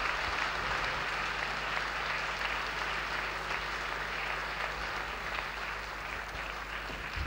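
Audience applauding steadily, easing off a little toward the end, with a low steady hum underneath.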